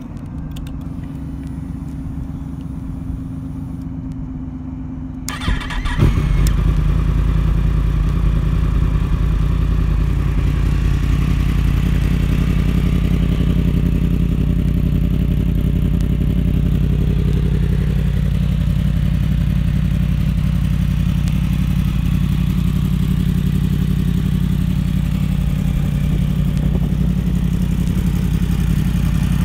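2017 Yamaha FZ-10's 998 cc crossplane inline-four with a Yoshimura Alpha 3/4 exhaust, cranked for about five seconds until it fires about six seconds in. It then settles into a loud, steady idle.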